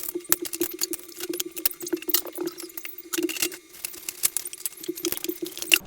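Stored food containers clinking and rattling against each other as they are handled, with many quick irregular clicks over a steady low hum.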